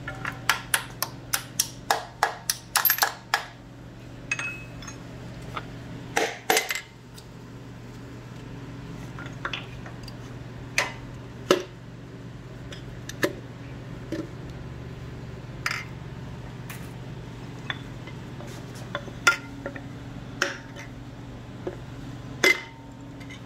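Steel hammer tapping on a connecting-rod cap of a Chevrolet 305 small-block V8 to knock the stuck cap loose: a quick run of about a dozen ringing metal taps in the first few seconds, then two harder hits about six seconds in. After that come occasional single metal clinks as the rod parts are handled, over a steady low hum.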